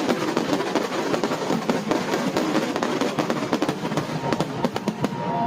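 New Year fireworks crackling and popping densely in a fast, irregular string of sharp cracks over a constant noisy wash, with music playing along.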